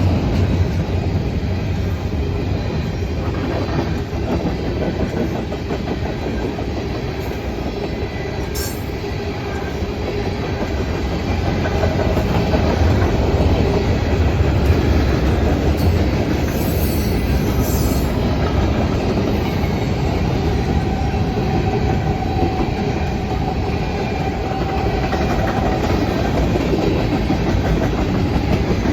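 Freight cars of a Norfolk Southern manifest train rolling past: a steady rumble and clatter of steel wheels on the rails, with a faint wheel squeal now and then.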